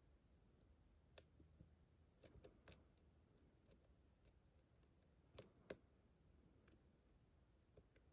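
Faint, scattered metallic clicks of a lock pick and tension tool working the pins of a GEGE pExtra 6-pin lock cylinder: single ticks and a quick cluster of three a little after two seconds in, with the loudest pair about five and a half seconds in.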